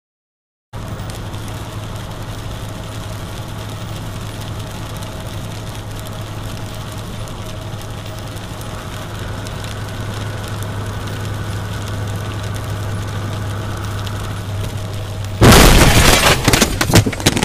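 Car driving on a wet road heard from inside the cabin, a steady road and engine hum. About fifteen seconds in comes a sudden, very loud crash with several hard bangs: a vehicle collision.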